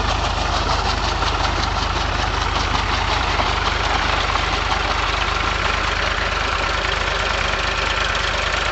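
Powertrac Euro 45 tractor's diesel engine running steadily while pulling a puddler and leveler blade through flooded paddy mud, with a dense hiss of churning water and mud over the engine's even low pulse.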